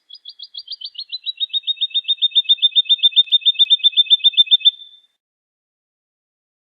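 Woodlark singing one long phrase of fast repeated notes, about eight a second, that swell in loudness and slide slightly down in pitch before stopping about five seconds in.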